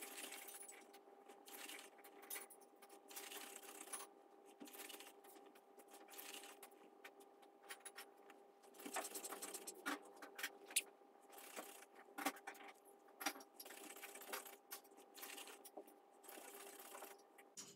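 Faint irregular clicks and ticks from a Sony Aibo ERS-1000 robot dog's leg joints and paws as it shifts about, over a faint steady two-note hum.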